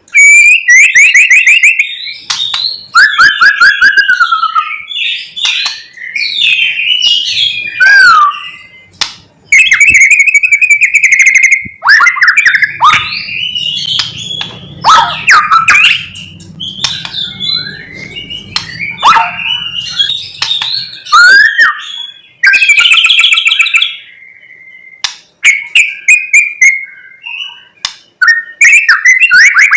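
White-rumped shama (murai batu) singing loudly in a long, varied run of whistled phrases, rapid trills and harsh buzzy notes with short pauses between them, its song full of mimicked calls of other birds.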